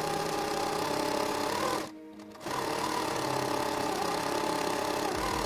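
Electric domestic sewing machine stitching a fabric strap in a fast, steady run, stopping for about half a second around two seconds in and then starting again; the footage is played at triple speed, so the stitching sounds quicker than normal.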